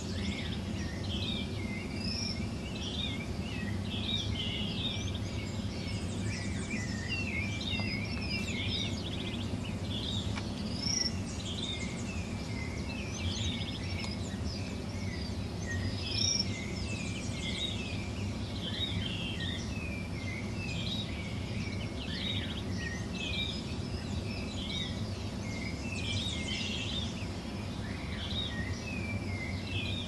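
Dawn chorus: many birds chirping and trilling at once, a dense, continuous mix of high calls over a steady low background rumble.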